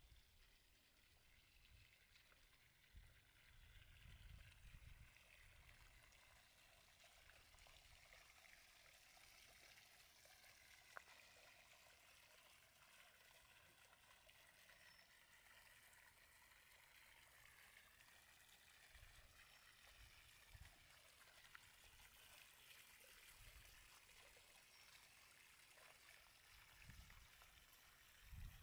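Near silence: faint outdoor ambience with a soft steady hiss, broken now and then by dull low thuds, most likely footfalls on a walking trail.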